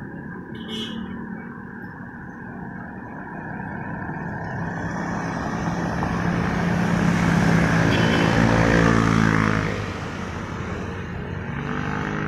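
Motorcycle engine passing close by: it grows louder over several seconds, its note drops as it goes past about nine and a half seconds in, then it fades quickly. Steady street traffic runs underneath, and another engine approaches near the end.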